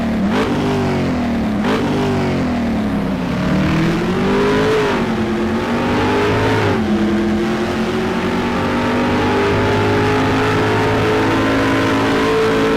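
Car engine revving: two quick blips of the throttle, then a slower rise and fall in speed, then held at a steady raised speed.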